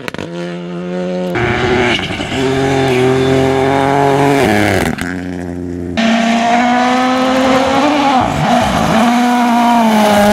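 Rally car engines running at high revs on a gravel stage, heard as several cut-together passes. Each pass is a steady, high engine note that jumps abruptly at the cuts. In the last few seconds the note climbs slowly as a car comes closer.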